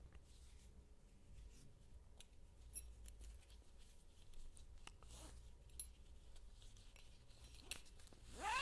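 Faint handling sounds of a yoga strap being made into a loop: scattered small clicks and short rustles, with a brief louder squeak rising in pitch at the very end.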